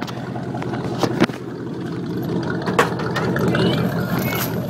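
Ford F-250 pickup's engine running steadily at a low, even pitch, with a few sharp knocks over it.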